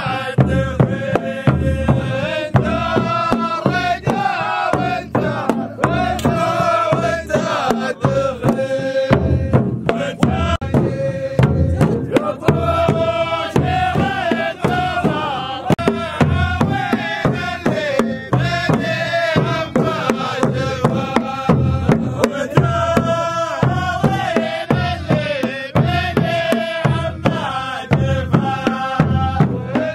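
Saudi ardah war song: a group of men chanting in unison over a steady beat of large frame drums.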